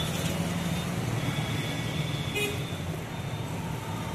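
Road traffic: vehicle engines running steadily, with a brief horn toot about two and a half seconds in.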